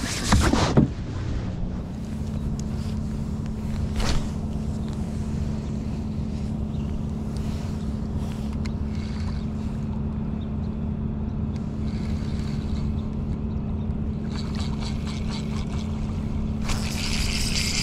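A fish splashes into a boat's live well in the first second. After that a steady, even motor hum runs aboard the bass boat, with a single click about four seconds in.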